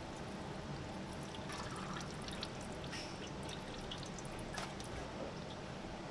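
Leftover transmission fluid pouring and dripping from an automatic transmission as its oil pan is lowered, with a few light clicks. A steady hum from the shop's air conditioning runs underneath.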